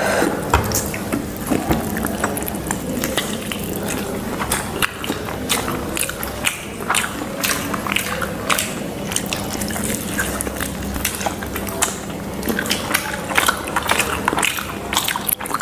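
Close-miked chewing and wet mouth sounds of people eating chicken lollipops, with many small sharp clicks and smacks throughout.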